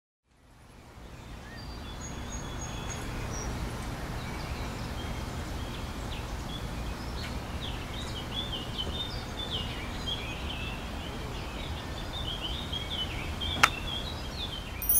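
Outdoor ambience with a steady low rumble that fades in at the start, and small birds chirping through the second half. Near the end, a single sharp click as a metal straw is pushed through a plastic cup lid.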